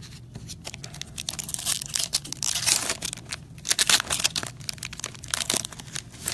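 Foil wrapper of a hockey trading-card pack crinkling and tearing open, a run of sharp crackles that is thickest in the middle.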